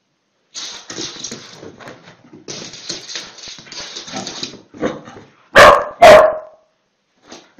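Excited dog scuffling and making noisy sounds as it darts about, then two loud, sharp barks about half a second apart a little over five seconds in.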